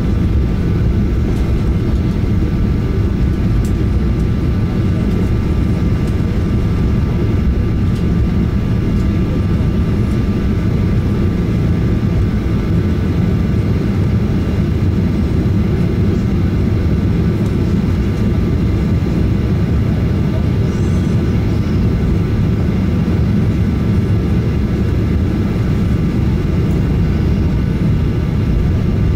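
Cabin noise of a Boeing 737-900ER rolling on the ground: a steady low rumble from its CFM56 jet engines, with a few faint steady whining tones above it. The noise stays level throughout, with no spool-up.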